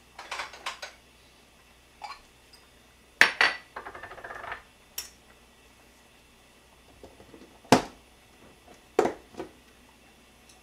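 Kitchenware being handled on a counter: small bowls and a plastic food container set down on a cutting board and the container opened, giving a string of separate sharp knocks and clatters, the loudest about three and eight seconds in.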